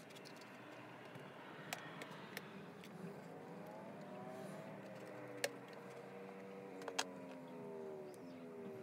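Small sharp clicks and taps of plastic parts of an OO-gauge model locomotive being handled during decoder fitting: about six in all, the loudest about halfway through and a close pair soon after. Under them a faint hum slowly rises and falls in pitch.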